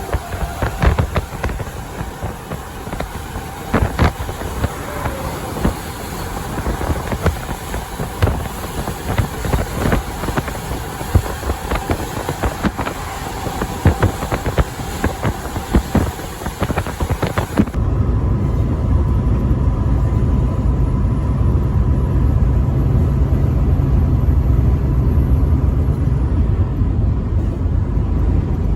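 Highway driving noise heard from a truck: a noisy, irregular clatter of clicks and knocks, then, about two-thirds of the way in, an abrupt change to a steady low engine and road drone.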